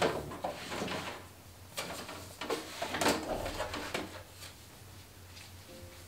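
Notepads and thin booklets slid into a magazine file organizer on a wooden shelf: several soft knocks and paper rubbing in the first four seconds or so, dying away after that.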